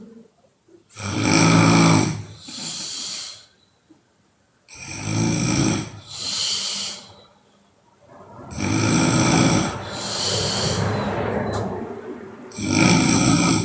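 A woman snoring loudly in a steady rhythm, one cycle about every four seconds. Each cycle is a loud snore followed by a shorter, softer breath, with four loud snores in all.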